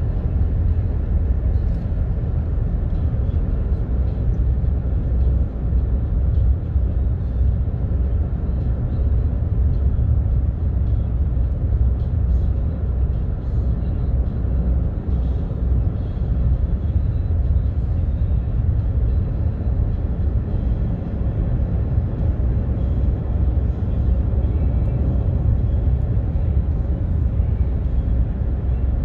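Steady low rumble of a car travelling at road speed: tyre and engine noise heard inside the cabin.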